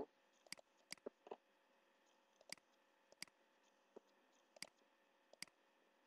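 Computer mouse clicking: about nine short, sharp single clicks, irregularly spaced and some in quick pairs, over a faint steady hum.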